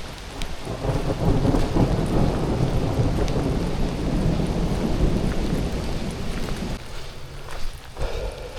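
Thunder rumbling for about six seconds, starting about a second in, over steady rain with scattered raindrop ticks.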